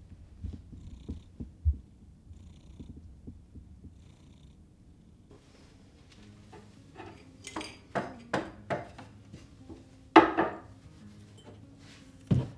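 A low pulsing rumble, then from about halfway a run of sharp knocks and clicks as household objects are handled and set down. The loudest knock comes about ten seconds in, with another near the end.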